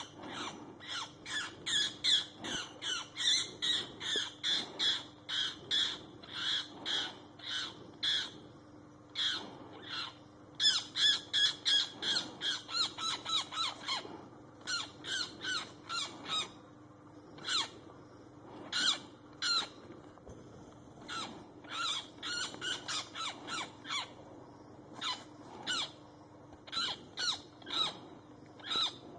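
A magpie giving harsh, rapid calls, about three a second, in long bouts. They thin out to scattered single calls in the second half. These are the distress calls of a magpie pinned down by a hawk.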